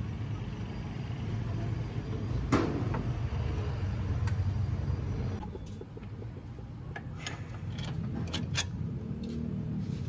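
Low steady vehicle rumble with one sharp knock about two and a half seconds in, and a few light metallic clicks and taps in the second half.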